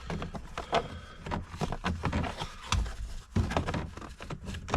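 Plastic interior trim pieces being handled and pushed into place on a car's dash: a run of irregular clicks, knocks and light rattles, with a sharper knock near the end.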